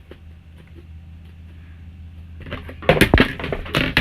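Homemade slime being stretched and squished by hand. After a quiet start, a cluster of sharp wet squelches and pops begins about two and a half seconds in, loudest about three seconds in and again near the end.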